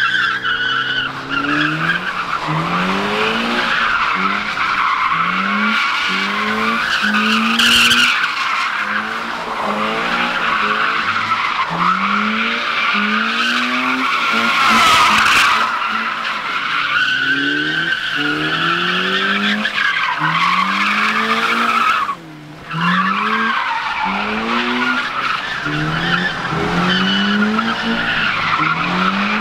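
A white Toyota 86 coupe's flat-four engine revs up over and over, about once a second, as the car does donuts. Its rear tyres squeal continuously as they spin and slide. About three quarters of the way through, the sound cuts out for half a second, then picks up again.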